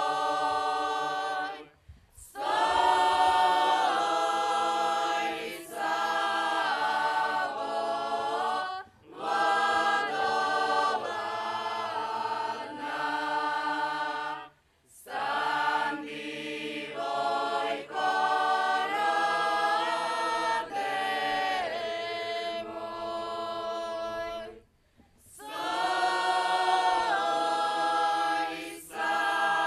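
Folk singing group of many voices singing a Slavonian folk song together. The voices sing in long phrases, each broken by a short breath about two, nine, fifteen and twenty-five seconds in.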